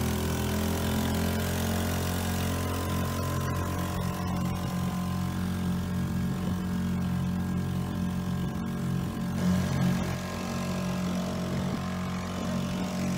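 Outboard motor running at a steady speed.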